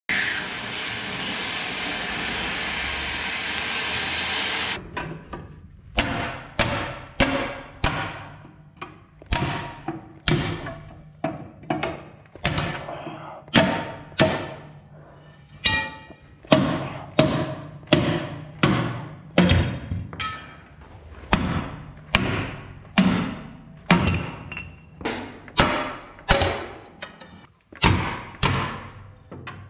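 Oxy-acetylene cutting torch hissing steadily for about five seconds as it cuts through a track-roller bolt, then stopping abruptly. After that, a hammer strikes a steel punch over and over, about one or two sharp metallic blows a second, driving the cut roller bolts out of the Yanmar B37 excavator's track frame.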